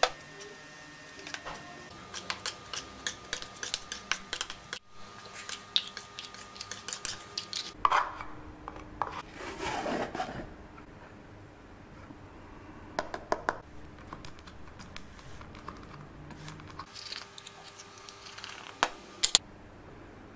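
A metal putty knife scraping and tapping on a board as sawdust is worked into white wood glue to make a filler paste, in quick short strokes, with a louder run of scraping about eight to ten seconds in. Near the end, a few sharp clicks of a tool against a small plastic pot as the paste is stirred.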